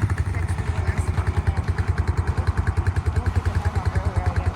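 Small single-cylinder pit bike engine idling with a steady, fast putter while it warms up.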